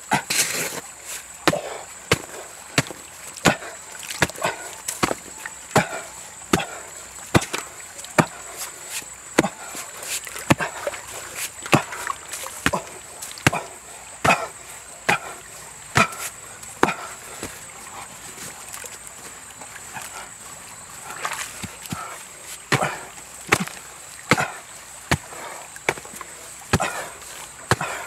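Hoe blade striking and digging into a packed dirt bank, a sharp thud about every second with a short pause partway through.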